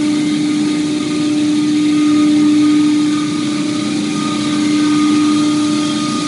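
Industrial machinery running steadily: a loud, even hum with one strong low-mid tone and a hiss over it, swelling slightly and easing a couple of times.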